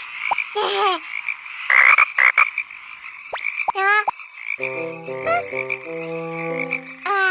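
Cartoon frog croaks: several short calls that swoop in pitch, with a few noisy bursts, and around the middle a run of short steady notes at stepped pitches, like frogs croaking a little tune.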